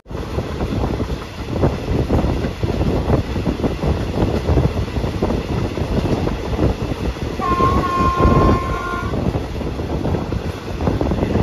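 Train running on the rails, a steady rumble with irregular wheel clatter, and its horn sounds once for under two seconds about seven and a half seconds in.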